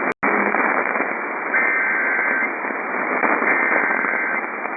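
Radio static hiss from weak broadcast reception, cut by a momentary dropout just after the start. Faint bursts of buzzing digital data tone, each about a second long and about two seconds apart, sound under the hiss, like an EAS SAME header being sent before the next alert.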